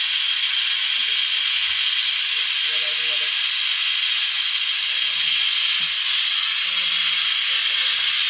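Steam hissing loudly and steadily from a pot on the cooking fire, a strong, even hiss that stops abruptly at the very end.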